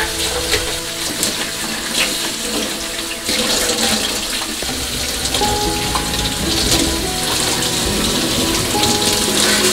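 Tap water running and splashing into a stainless steel sink while glass and stainless steel containers are rinsed and scrubbed with a dish brush, with a few light knocks of the containers.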